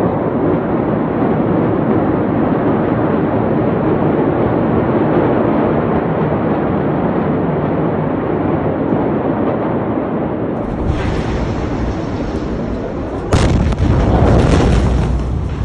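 A steady rushing noise, then about thirteen seconds in a sudden loud explosion blast, followed by a couple of seconds of loud rushing noise from the blast.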